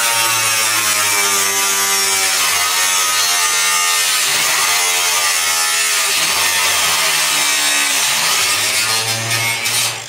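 Angle grinder running continuously as it cuts metal, a steady high whine with a hiss of grinding. Its pitch sags twice under load as the disc bites, and it eases off near the end.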